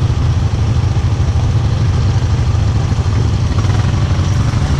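ATV engine idling steadily, heard from the rider's seat, with a constant low rumble.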